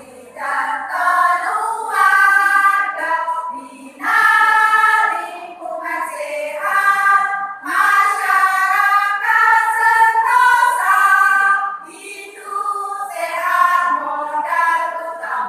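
A choir singing, in sung phrases broken by brief pauses for breath.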